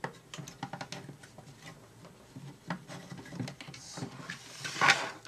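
A small screwdriver backing screws out of the toy car's plastic chassis: irregular light clicks and scrapes of metal on plastic, with a louder clatter near the end.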